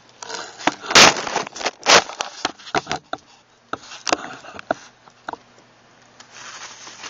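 Plastic bag and paper firework wrappers being handled, crinkling and rustling in a string of short crackly noises, loudest about one and two seconds in.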